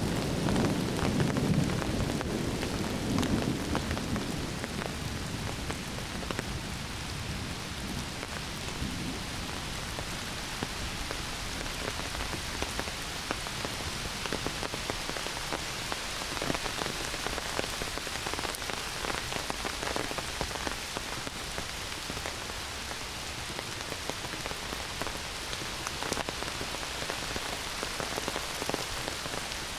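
Heavy rain pouring steadily through the forest, a dense patter of drops on leaves and ground. A low thunder rumble dies away over the first few seconds.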